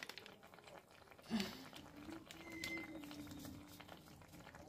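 Faint kitchen sounds: a pot bubbling with a light crackle, and a held, voice-like humming tone that starts about a second in and lasts about two seconds.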